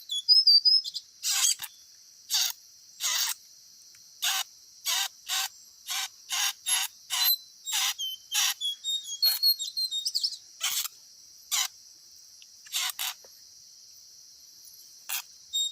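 Bird chirps over a steady high insect buzz, broken by a run of short, harsh, scratchy bursts, about two a second in the middle and fewer near the end.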